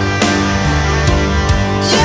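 Rock background music with electric guitar and a steady drum beat.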